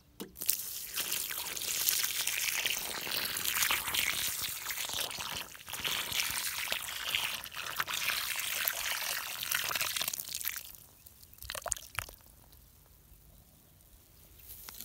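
Water mixed with termite pesticide poured in a steady stream onto a newly planted eucalyptus seedling, splashing into the soil and foam pooled in its planting basin; the pour stops about ten seconds in. This is the drench that protects the seedling from termites.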